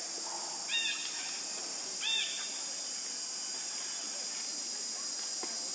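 Steady, loud high-pitched drone of an insect chorus. Two short, high, arching calls stand out about a second in and again a second later.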